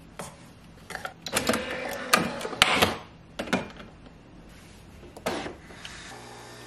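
Objects being handled: a quick run of sharp knocks and clicks with rustling and scraping between about one and four seconds in, then one more knock a little after five seconds.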